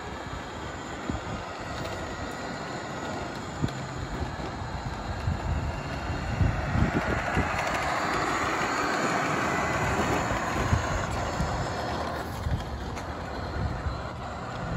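Radio-controlled toy Ford Lightning pickup towing a plastic boat trailer, driving over asphalt: a steady rattling, rolling noise of plastic wheels and its motor and gears, with many small knocks, louder in the middle as it comes close.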